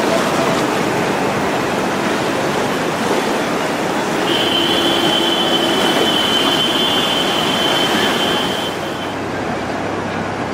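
Loud rushing of floodwater. About four seconds in, a steady high-pitched tone joins it and holds for roughly five seconds.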